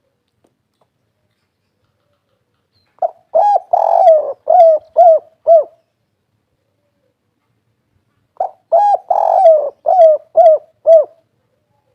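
Spotted dove cooing: two song phrases about five seconds apart, each a rolling coo that ends in three separate 'kuk' notes, the kuk-3 song type.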